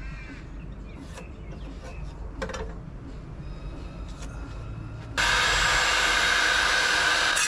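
A few light knocks and clicks of handling, then about five seconds in an electric hand power tool comes on loud and runs steadily, working a wooden slab.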